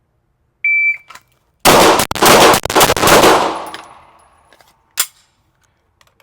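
A shot timer's high start beep, then a rapid string of six shots from a 9mm Glock 34 pistol fired in a Bill Drill. The string lasts about two and a half seconds, and the echo rings on after the last shot. One more single loud shot follows about five seconds in.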